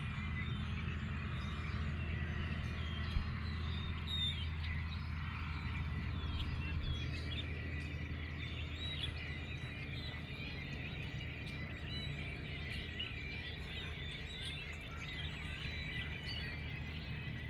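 A chorus of many birds chirping and singing at once, a dense run of short high calls and trills that never lets up, over a steady low rumble.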